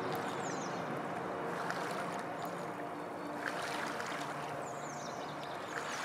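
Steady low drone of distant traffic on the Forth bridges carried across the water, over a constant wash of estuary noise. A few brief high chirps that fall in pitch come near the start and twice near the end.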